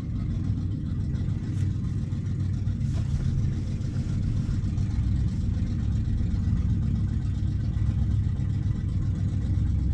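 Steady low vehicle rumble, heard from inside a car's cabin.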